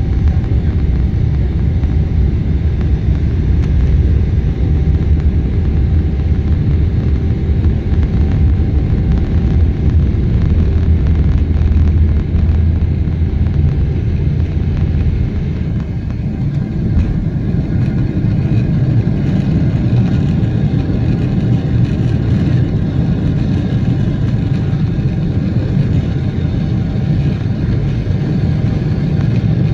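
Boeing 777's jet engines at takeoff thrust, heard from inside the cabin, over a deep steady rumble from the wheels on the runway. About halfway through the deepest rumble eases as the wheels leave the ground, leaving the engine noise.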